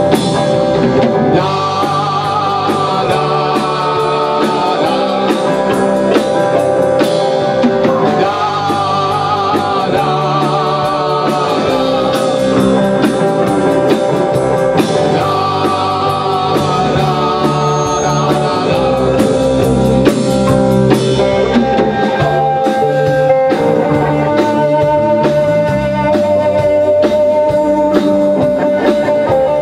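A rock band playing live: electric guitar, bass guitar and a Tama drum kit, loud and continuous.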